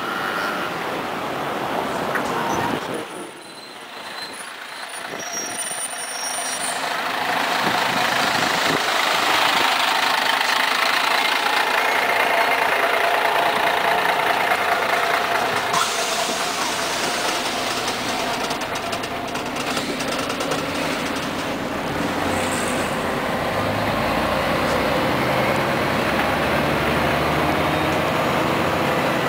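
Scania CN113CLL city bus arriving at the stop and standing with its diesel engine running, then heard from inside as it pulls away. A few short high beeps come about six seconds in.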